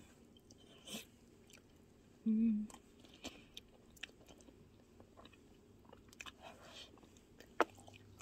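A person chewing a mouthful of creamy rosé spaghetti close to the microphone: soft wet mouth sounds and scattered small clicks, with a brief hummed "mm" about two seconds in.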